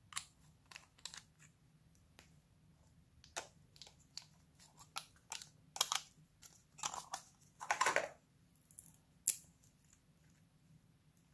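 Scattered sharp clicks and taps from nail polish bottles, brush caps and a plastic lid being handled and unscrewed, with a short scraping rustle about eight seconds in.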